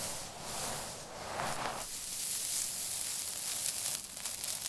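Dry crushed soap crumbs rustling and crackling under the hands: a few sweeping strokes through the pile, then a steady crisp crackle as handfuls are scooped and the grains trickle back down.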